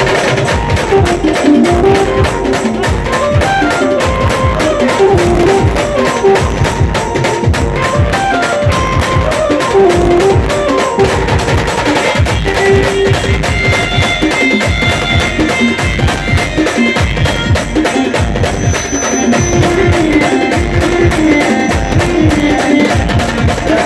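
A village band playing an Adivasi folk tune: a fast, driving drum beat under a melody that steps up and down.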